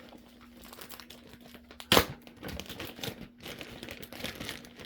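Packing tape being peeled off and packaging crinkling, in a run of short scratchy rustles with one sharp snap about two seconds in.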